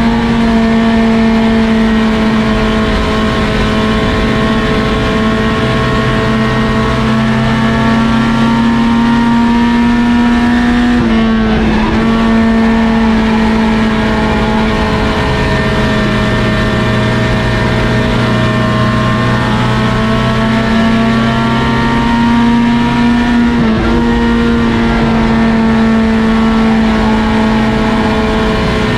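Race car engines running hard at steady high revs during a heat race. The engine note breaks and shifts pitch briefly twice, about twelve seconds apart.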